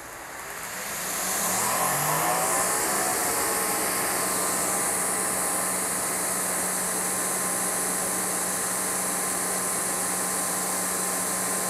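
Greenworks 2300 PSI electric pressure washer's motor spinning up, its whine rising over the first couple of seconds, then running at a steady hum with the hiss of water spraying through the 25-degree nozzle.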